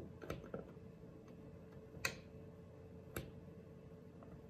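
Light clicks and taps of a screwdriver-style voltage tester's metal blade in a wall socket's contact and of fingers on its plastic handle. A few small clicks come at the start, then two sharper clicks about two and three seconds in, the first of them the loudest.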